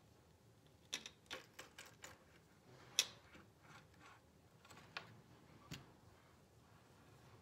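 Light, irregular clicks and taps as the rhinestone-covered offset cane is shifted and turned on the tabletop, with one louder click about three seconds in.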